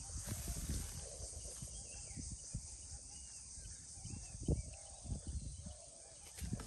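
Outdoor ambience: faint, scattered bird chirps over a low rumble of wind on the microphone, with a few soft knocks, the clearest about four and a half seconds in.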